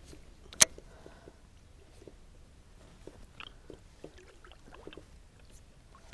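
One sharp, loud click or knock about half a second in, then faint scattered small clicks and ticks of something being handled.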